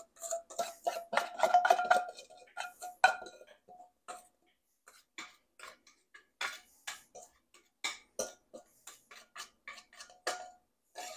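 A ceramic mixing bowl clinking against cookware while thick cornbread batter is poured from it into a glass baking dish: a string of light taps and clicks, with a short ringing of the bowl in the first few seconds.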